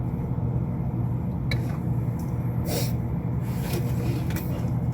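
Steady low machinery hum from equipment in a mechanical room. Over it come a few small clicks and rustles of wires and connectors being handled during a controller board swap.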